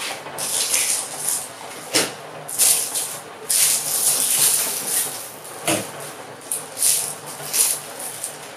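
Plastic bread bag crinkling and rustling in irregular bursts as it is handled, with two sharp knocks about two seconds in and near six seconds.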